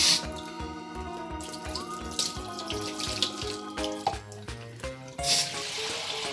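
Water poured from a plastic jug splashing over a small dog and into a stainless-steel sink, three pours in all: at the start, about two seconds in, and near the end. Background music plays throughout.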